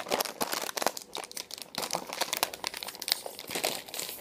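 Plastic snack bag crinkling and crackling without a break as it is handled and pulled open.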